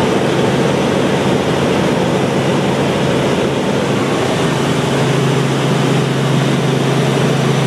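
Steady drone of a helicopter's engine and rotor heard inside the cabin in flight, with a low hum that grows stronger about five seconds in.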